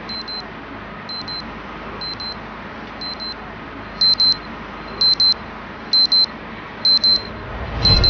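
High electronic beeps in quick pairs, about one pair a second, growing much louder about halfway through. A low rustle comes near the end.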